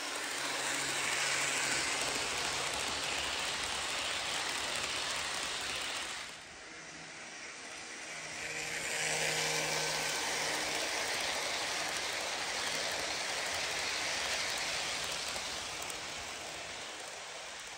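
HO scale model Burlington Zephyr passenger train rolling along plastic-roadbed track, a steady rushing clatter of wheels on rail with a faint low motor hum. It drops away briefly about six seconds in, builds again as the train comes by a second time, and fades near the end.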